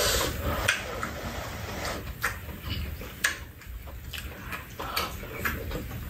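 Close-up eating sounds: chewing and slurping of stir-fried fish cake and broth, with scattered sharp clicks of spoons and chopsticks against bowls.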